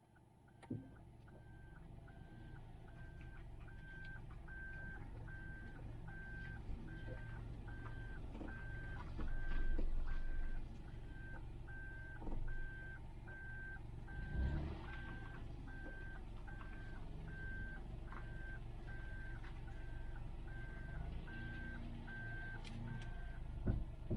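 A vehicle's reverse warning beeper sounding a steady single-pitched beep, somewhat more than once a second, over a low engine rumble, with a few knocks along the way.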